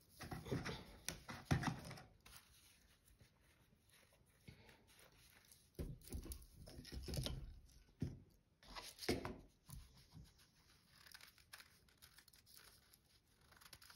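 Faint, irregular rustling and scraping as a rice-filled sock is handled and worked off a plastic jar, the rice grains shifting inside the fabric. There are louder bursts near the start, about halfway through and a little later.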